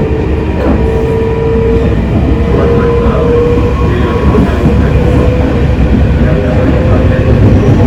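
JR East 253 series electric train running at speed, heard from inside the passenger car: a steady low rumble with a faint whine held at one pitch.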